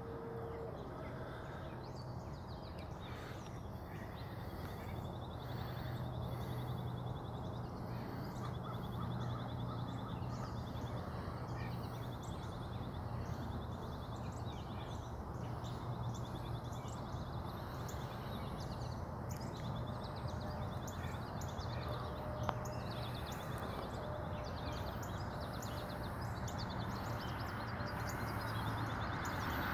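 Outdoor roadside ambience: steady background noise with a low hum and many short, high chirps repeating throughout, and a rush of noise that grows louder near the end.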